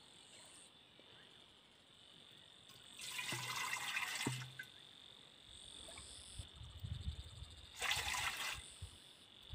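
Water poured from an enamel mug into a narrow-necked metal water pot, two pours: one about three seconds in lasting a second and a half, and a shorter one about eight seconds in.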